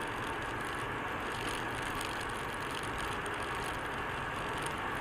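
Steady engine and tyre noise of a car driving at highway speed, heard from inside the cabin through a dashcam's microphone.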